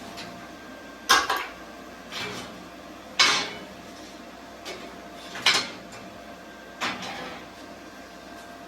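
Steel sheet-metal plate clanking as it is handled, with about four sharp metallic knocks a second or two apart, each ringing briefly.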